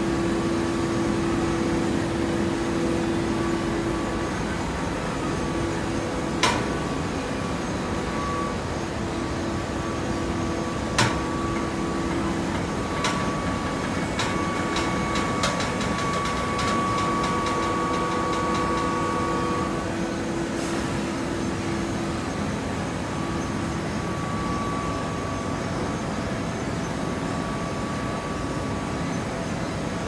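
Horizontal hydraulic baler compressing cotton fiber, running with a steady machine hum. A few sharp clicks stand out, and there is a run of rapid clicking around the middle.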